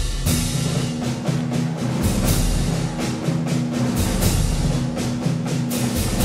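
Background music: a steady drum and percussion beat over held low notes.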